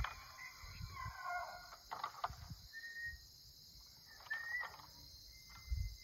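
Bull elk bugling, heard from a distance: a series of high, thin whistling calls, some rising and one held near the end. A steady insect chorus runs underneath, with a few dull low bumps.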